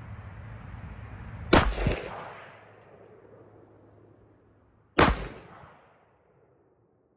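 Two rifle shots from a 300 AAC Blackout AR-15, about three and a half seconds apart, each a sharp report with an echo dying away over about a second.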